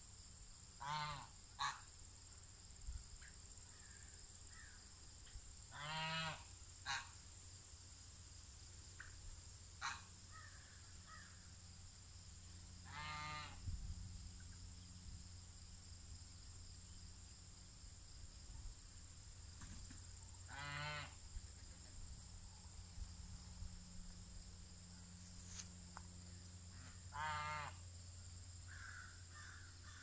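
A bird giving single harsh calls, five main ones spaced several seconds apart, over a steady high-pitched insect drone.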